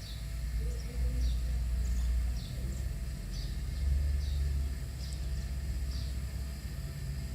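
A bird repeats a short, high, falling chirp about once a second over a steady low rumble.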